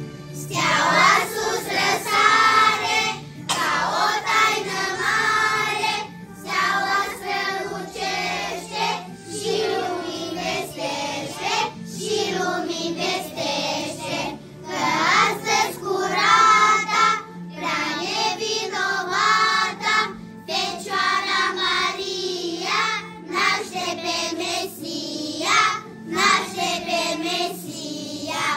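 Children singing a song in short phrases over an instrumental backing track.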